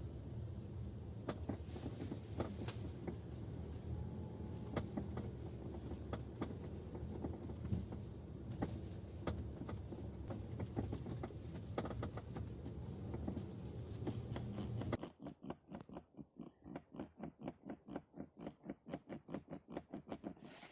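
Rear seat-back latches of a Geely Atlas knocking in the cabin over rough-road rumble, a scattered irregular clacking as the car rocks on an uneven road. The knock comes from loose play in the latch's catch loop. About 15 s in, the road rumble stops and a rapid, regular knocking of about four knocks a second follows.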